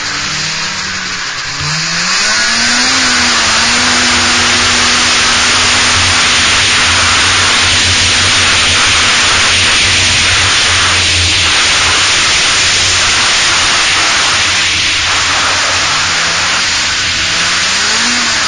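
Yamaha Exciter 570 snowmobile's two-stroke engine, fitted with PSI dual pipes and flatside carbs, running along under way. It speeds up a couple of seconds in, then holds a steady pitch, and climbs again near the end. A loud steady rushing hiss of wind and track noise runs under it.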